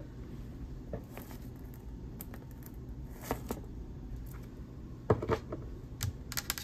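Quiet handling of a clear quartz crystal held in fingers with long nails, with a few faint clicks, then a short run of small clicks and taps as it is set down on the table near the end. A steady low room hum lies underneath.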